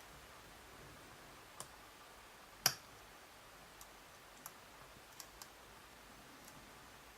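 Faint, scattered metallic clicks of a lock pick working the pins of a JIS 5200 nine-pin tumbler lock under light tension, about seven in all, with one sharper click a little under three seconds in.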